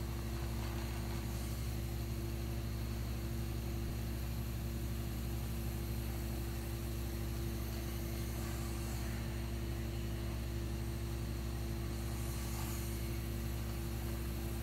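Radio-controlled model compact loader: a steady low engine-like hum, with brief higher whirring from its drive gear motors about 8 and 12 seconds in.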